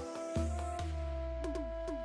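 Background music with a steady bass note and electronic beat.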